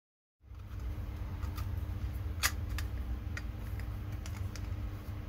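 Hard 3D-printed plastic parts of an iris valve clicking and tapping as they are handled and pushed together, with one sharper click about two and a half seconds in, over a steady low hum.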